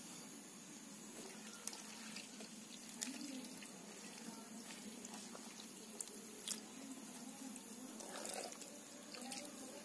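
Faint wet splashing and dripping as small cleaned fish are handled and dropped into a metal bowl of water, with a few light clicks.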